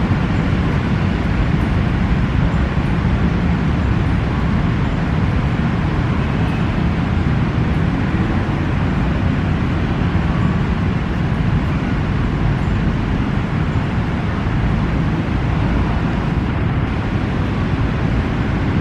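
Steady rumble of road traffic, an even, unbroken noise heaviest in the low end.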